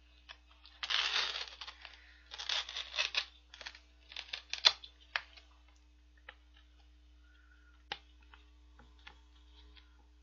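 Crinkling and tearing of an instant cup noodle's packaging as its lid and attached packet are handled, in several bursts through the first five seconds, then a few light clicks and taps.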